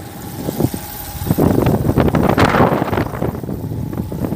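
A motor vehicle's engine running close by, growing louder about a second in, with a rattly noise that peaks midway.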